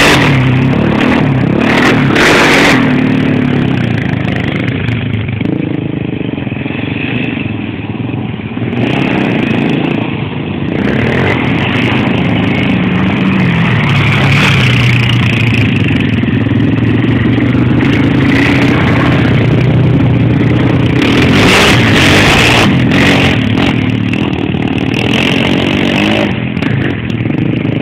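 Quad bike (ATV) engine revving as it rides, its note repeatedly rising and falling as it accelerates and slows. It is loudest when the quad passes close, near the start and again about two-thirds of the way through.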